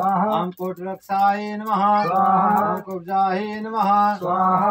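A man chanting Sanskrit mantras on a steady reciting pitch, in short phrases broken by brief pauses for breath: the chant that goes with offerings into a havan fire.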